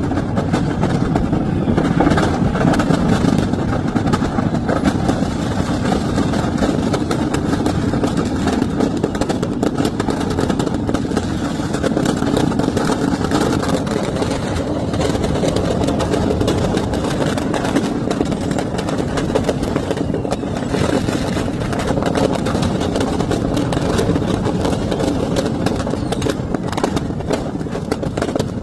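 Steady vehicle engine and road noise that runs continuously without a break.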